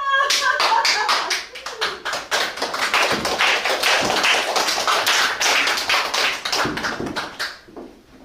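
A fast run of sharp taps, several a second, varying in loudness and stopping suddenly near the end.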